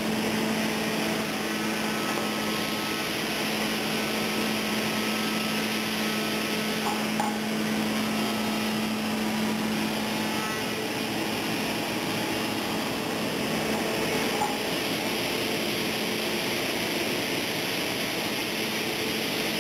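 Horizontal beam panel saw at work on a stack of plywood panels: steady machine noise with a constant low hum that stops about halfway through, and a couple of faint knocks.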